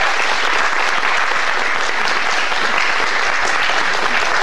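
Audience applauding steadily, dense clapping at an even level.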